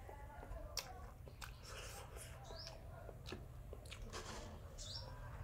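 A person chewing a mouthful of pan-fried noodles and egg, with many small, sharp, wet clicks of chewing. A few short bird chirps sound in the background.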